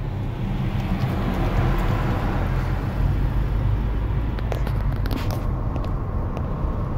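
Road noise heard from inside a moving car: a steady low rumble of engine and tyres, with a few short clicks about five seconds in.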